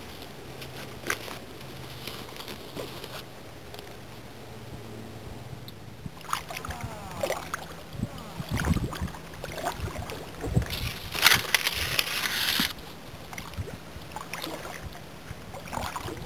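Water sloshing and splashing around a kayak, with scraping and rustling as the hull moves into brush along the shore. The sounds are irregular and start about six seconds in; a burst of splashing and rustling from about eleven to twelve and a half seconds is the loudest part.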